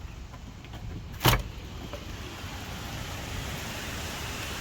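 Steady hiss of the wind storm and rain outside, heard from inside an RV, with one sharp knock about a second in.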